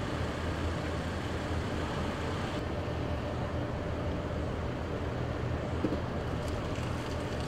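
Steady engine drone: a low hum under an even wash of noise, unchanging in level.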